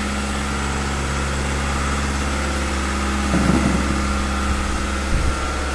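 Toyota Fortuner diesel engine idling steadily and smoothly, without the injector knock it had before its injector wiring was repaired.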